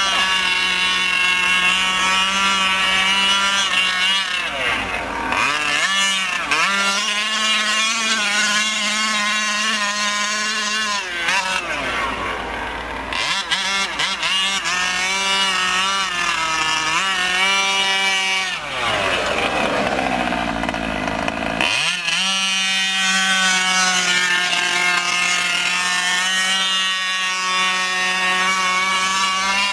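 Losi 5ive-T RC truck's small two-stroke gasoline engine running at high revs as the truck drives, its pitch sweeping down three times as it slows and climbing back as the throttle opens again.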